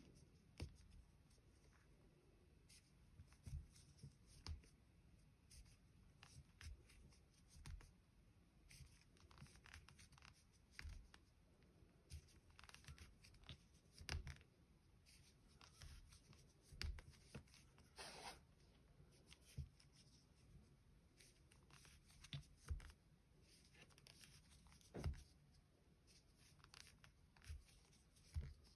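Faint, irregular rustles and soft ticks of a metal crochet hook pulling lilac yarn through single crochet stitches, with near silence between them.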